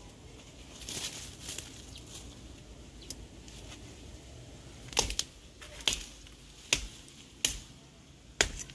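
Machete (bolo) chopping: five sharp strikes starting about halfway in, roughly one every second, after a brief rustle about a second in.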